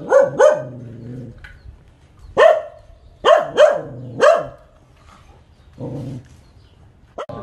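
A dog barking, six sharp barks that each drop in pitch: two at the start, one about two and a half seconds in, then three more in quick succession.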